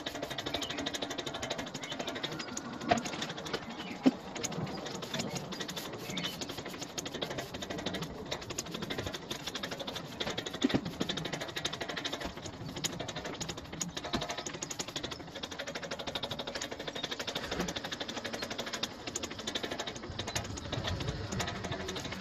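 Stiff broom scrubbing wet jointing compound into the joints of block paving: a steady, dense, scratchy ticking, broken by a few sharp knocks about 3, 4 and 11 seconds in.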